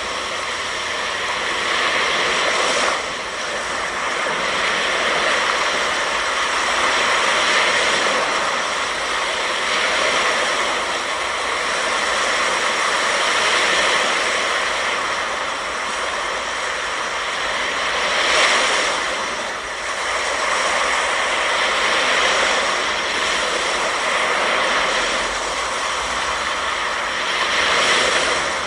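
Ocean surf washing onto a sandy beach: a steady rushing noise that swells and eases every few seconds.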